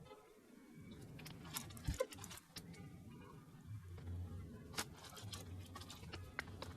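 Faint scattered small clicks and light knocks, the loudest about two seconds in and again near five seconds, over a low hum.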